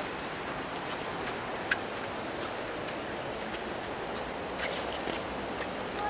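An insect trilling steadily at a high pitch, in rapid even pulses, over a steady hiss of outdoor background noise, with a few brief chirps, one a little under two seconds in.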